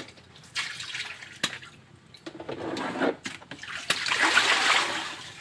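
Water being scooped and poured from a plastic bucket, splashing, with a few light knocks of plastic. The longest, loudest pour comes about four seconds in.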